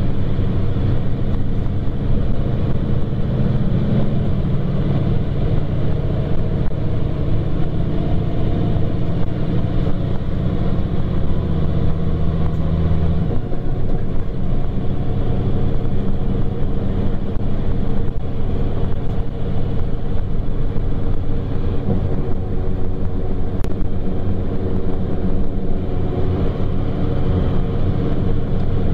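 Coach engine and drivetrain heard from inside the bus's cabin while it is under way, a steady running note. The heaviest low engine sound eases off about halfway through, as when the driver lifts off the throttle.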